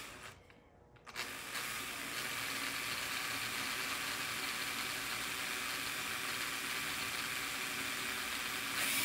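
Small cordless drill starting about a second in and running steadily, its motor whirring as it drills a small pin hole into a tiny part.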